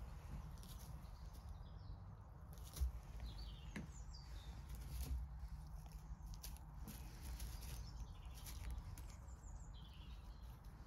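Faint crisp clicks and rustling from a white satin rabbit nibbling and shuffling in hay, over a low rumble. A few birds chirp in the background, and there is one thump about a quarter of the way in.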